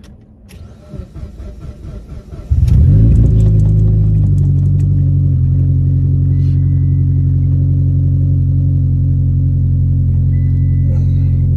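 Highly modified 800 hp Mitsubishi Lancer Evolution engine starting about two and a half seconds in, flaring briefly, then settling into a steady idle.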